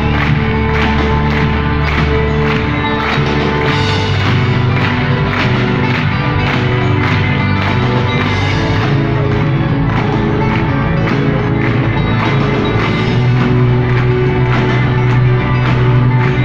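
A live folk-rock band playing in a large arena: drums keeping a steady beat under sustained guitar chords.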